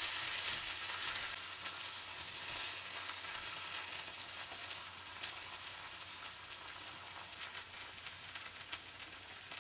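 Steak sizzling and crackling in hot oil in a small cast-iron skillet, slowly dying down.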